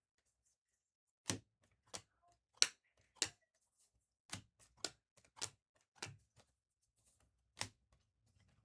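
Trading cards being handled one at a time, making a series of about ten sharp clicks at an uneven pace of one or two a second.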